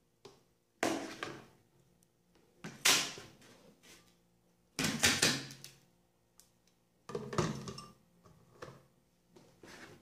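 Crushed ice being shaken and knocked out of a glass blender jar onto a plate: five separate bursts of clattering and rattling, about two seconds apart.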